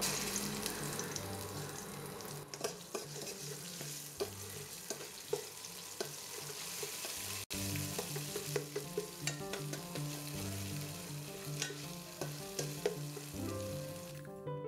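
Mustard and poppy seed paste sizzling in hot mustard oil in a stainless steel kadai, loudest as the paste goes in and then settling, while a metal spatula stirs it with frequent clicks and scrapes against the pan. The spice paste is being fried.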